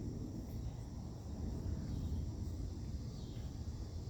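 Outdoor shoreline ambience: a steady low rumble with crickets or other insects trilling faintly and steadily high above it.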